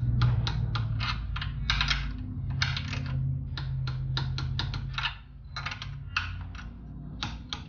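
Ratchet wrench clicking in quick strokes, tightening down the cylinder head fasteners on a small engine, over a low steady hum.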